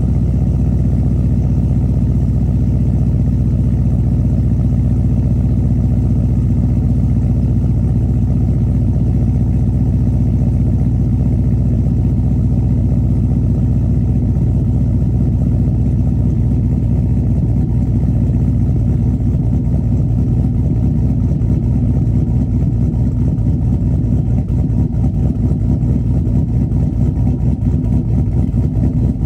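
GM LS V8 with a BTR Truck Norris camshaft idling cold, soon after a cold start in below-freezing weather. It runs steadily through shorty headers, high-flow catalytic converters and a 3-inch Borla XR1 muffler.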